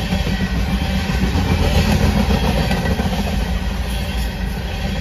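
Coal hopper cars of a freight train rolling past, a steady rumble of steel wheels on rail that swells slightly about two seconds in.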